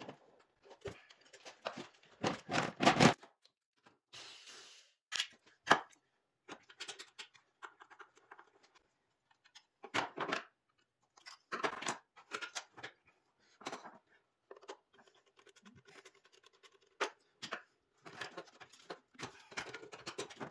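Irregular clicks, knocks and scrapes of hand work in an engine bay: a battery terminal being undone, then the rubber intake tube being loosened and pulled free.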